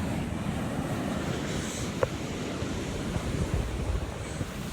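Ocean surf breaking steadily, with wind rumbling on the microphone; a brief click about two seconds in.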